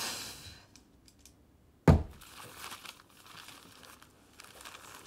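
A single sharp thump about two seconds in, then newspaper pages rustling and crinkling as they are opened and handled.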